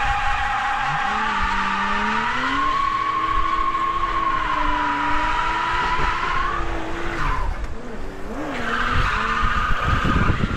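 Heard from inside the cabin, the Toyota Chaser drift car's tyres squeal through a slide while its engine revs up and down. The squeal drops away about seven seconds in and starts again near the end.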